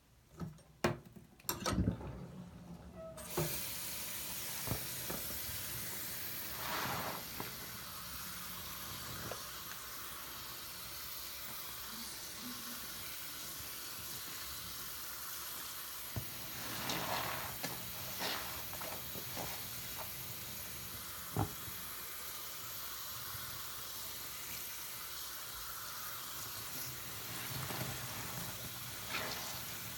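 A soapy sponge squeezed and squished in a sink full of shaving-cream lather, with wet clicks and squelches. A steady fizzing, watery hiss sets in abruptly about three seconds in, and tap water runs over the sponge near the end.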